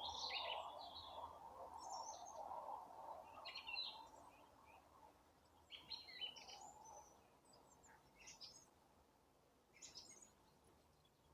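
Faint songbirds chirping and singing in short, scattered phrases, a snatch every second or two. A soft rushing background noise fades out over the first few seconds.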